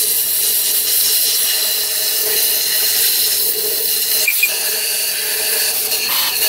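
Compressed air hissing from an air-gun nozzle pushed into the water-jacket passages of an Oldsmobile 350 V8 block, blowing loose rust out of the coolant passages. The hiss is loud and steady, with a faint whistling tone.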